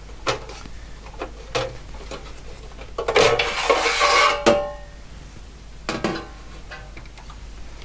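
The sheet-metal outer case of an OWON XDM3051 bench multimeter being slid off its chassis by hand: a few light knocks, then about a second and a half of metal scraping with a metallic ring, starting about three seconds in. A few more light knocks come near the end.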